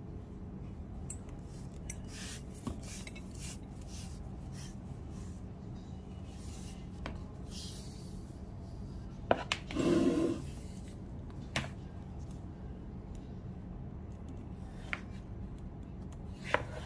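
Leather belt with a metal V buckle being handled: soft rubbing of the leather and light ticks from the buckle. There is a louder knock and a short scrape near the middle.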